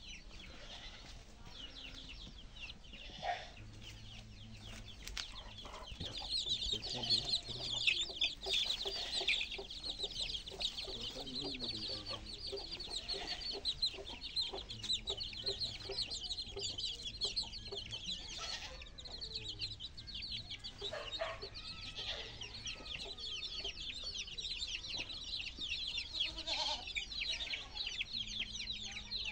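Chickens clucking, with a dense high chirping that grows louder about six seconds in, and a few scattered knocks.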